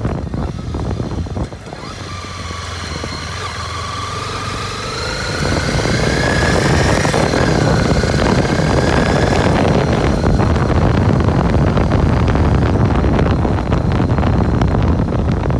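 Honda CB250R's single-cylinder engine under way, its note climbing slowly in pitch for several seconds as the motorcycle accelerates. From about six seconds in, loud rushing wind on the microphone grows over it.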